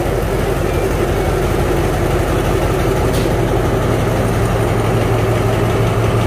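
Alsthom diesel-electric locomotive idling at a standstill, a loud, steady engine hum with an even low drone.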